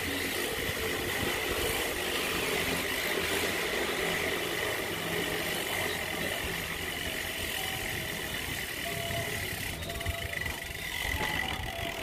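Steady urban street ambience: a low, continuous rumble of motor-vehicle engines with a steady high-pitched tone running through it.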